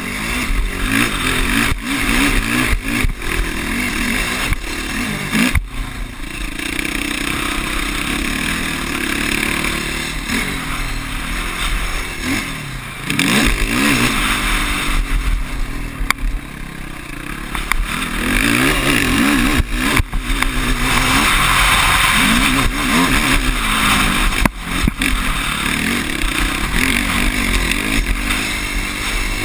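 Sport quad's engine heard from the rider's seat, revving hard and shifting through the gears on a dirt track. Its pitch climbs and drops again and again.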